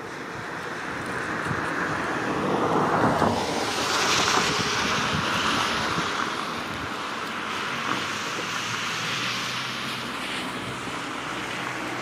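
Broad rushing noise of flowing river water and wind, swelling to its loudest a few seconds in and then easing to a steady hiss.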